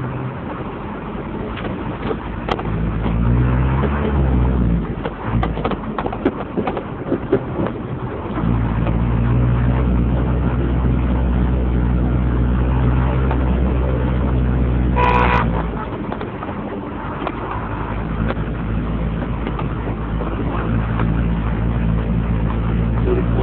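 Motor vehicle engine running while under way, rising in pitch as it revs up a few seconds in. A short horn toot sounds about two-thirds of the way through.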